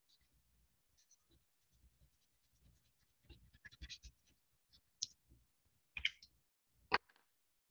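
Felt-tip marker scratching across paper as a drawing is coloured in, followed in the second half by three short sharp clicks, the last the loudest.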